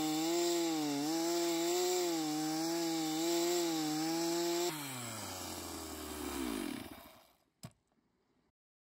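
Stihl two-stroke chainsaw running at speed with a slightly wavering pitch; about five seconds in it drops, winds down and stops. A single sharp click follows.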